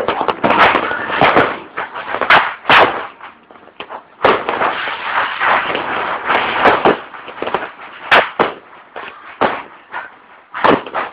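Fireworks and firecrackers going off in a dense, continuous run of bangs and crackling, with several sharper, louder bangs standing out, the clearest about a third of the way in and again about three quarters through.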